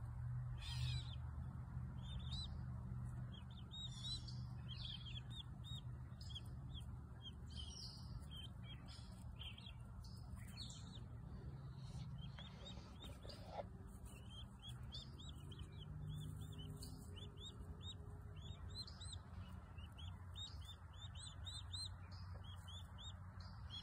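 Turkey poults peeping: short, high, arched peeps in quick runs, over a low steady hum.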